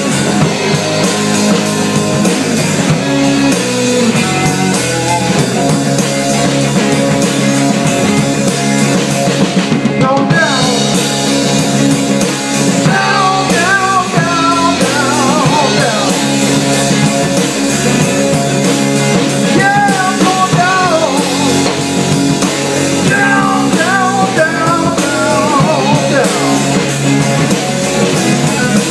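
Blues band playing with a drum kit, a trombone played up close carrying wavering, sliding melody lines from about ten seconds in.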